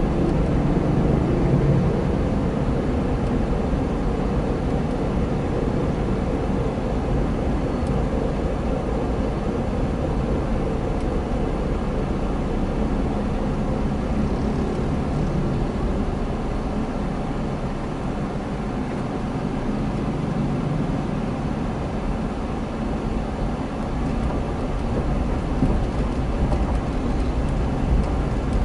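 Steady engine and road noise of a car, heard from inside its cabin.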